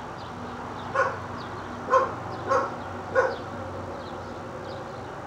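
Dog barking four times, short barks roughly a second apart, starting about a second in.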